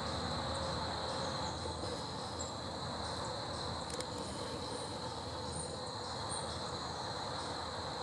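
Steady, unbroken high-pitched insect chorus trilling over a low background rumble, with a few faint short high chirps in the middle and toward the end.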